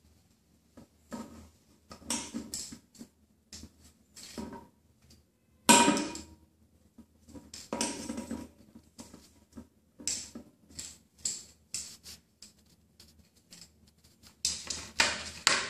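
A kitten playing with a small stick toy on a tiled floor: irregular scuffs, scrapes and light taps as the toy is batted and skids across the tiles. About six seconds in comes a sharper clatter with a brief ring, and a quick flurry of scuffs near the end.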